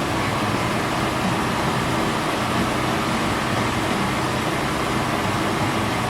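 Portable generator running with a steady hum.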